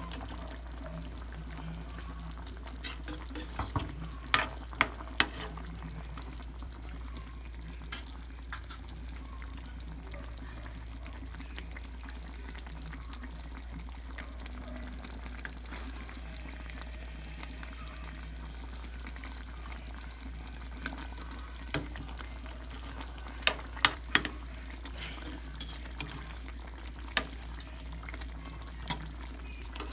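Chicken afritada, a tomato-sauce stew, simmering in a frying pan over a gas burner, with a steady low hum and occasional sharp clicks.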